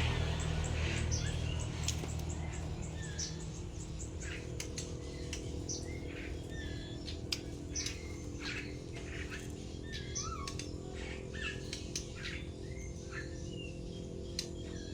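Songbird calling with many short chirps and whistles in quick, irregular succession, over a steady low hum.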